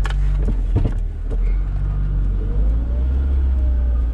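UAZ Bukhanka van engine running, heard from inside the cab, with a few clicks and knocks in the first second as a gear is selected. From about halfway through a faint whine rises and then falls in pitch as the van moves off.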